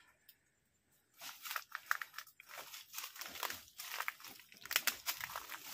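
Footsteps crunching and rustling on dry leaves and loose rubble, a quick, irregular run of crackles that starts about a second in.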